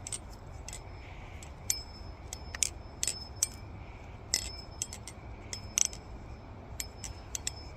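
Balisong (butterfly knife) being flipped: irregular sharp metallic clicks and clinks as the handles swing and knock together, several with a short ring.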